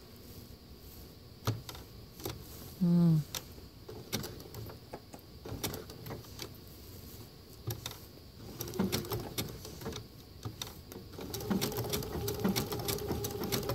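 Sewing machine stitching around an appliqué edge. Scattered clicks of the needle and feed come as the fabric is guided and turned, then from about eleven seconds in the motor runs steadily with a hum. A short vocal 'mm' about three seconds in.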